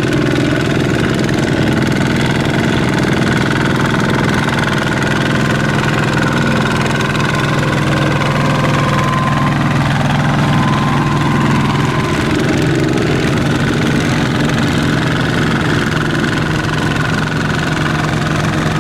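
Tractor engine running steadily at a constant pace.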